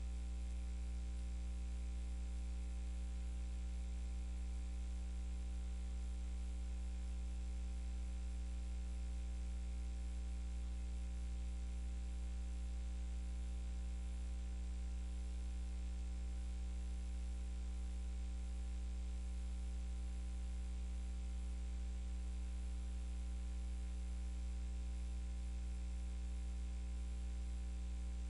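Steady electrical hum with a constant background hiss, unchanging throughout: the idle line noise of a live radio broadcast feed with no programme audio on it.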